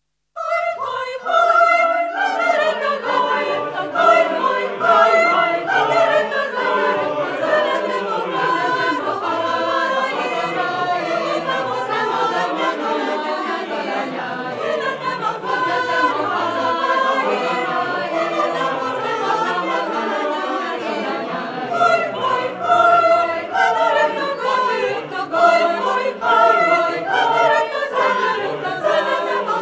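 Choir singing an arrangement of Hungarian folk songs, several voice parts together, starting about half a second in.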